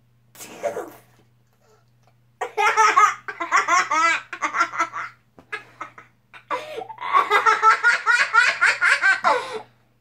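Young boy laughing hard and high-pitched in two long bouts, the first starting about two and a half seconds in and the second about six and a half seconds in.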